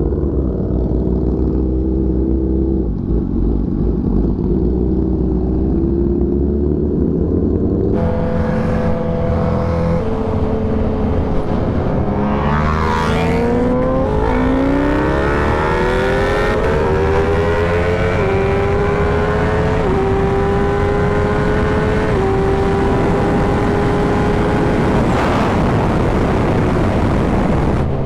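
Motorcycle engine under way, its pitch climbing slowly and dropping in steps at each gear change. A second engine sweeps past about halfway through.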